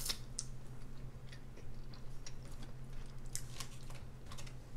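Close-miked eating sounds: chewing on king crab meat in butter sauce, with scattered wet mouth clicks and short crackles, over a steady low hum.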